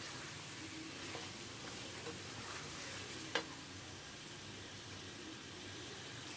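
Chicken and tinda pieces sizzling in hot oil and masala in a kadai while being stirred with a wooden spatula, a steady frying hiss. One sharp knock on the pan a little past the middle.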